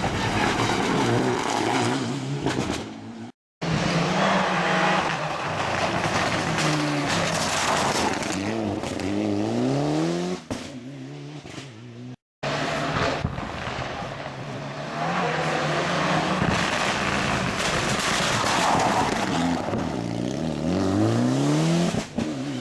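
Rally cars at full throttle, engines revving hard and climbing through the gears with repeated rises and drops in pitch, with some tyre squeal. Three separate passes are cut together, with abrupt cuts a few seconds in and about halfway.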